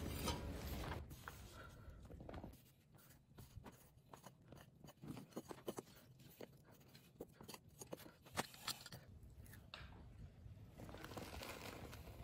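Packed moulding sand being scraped and dug away with a steel trowel from a sand-casting flask over a freshly poured aluminium casting: a string of quiet, short crunching scrapes, thickening into a grainy rustle near the end.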